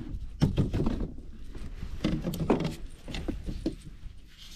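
Irregular knocks, taps and thumps against a kayak hull while a just-caught white bass is handled and unhooked.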